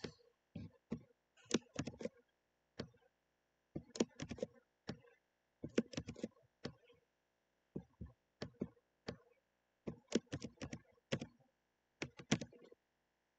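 Short runs of sharp clicks and taps from a computer mouse and keyboard being worked, in clusters of two to five with brief pauses between.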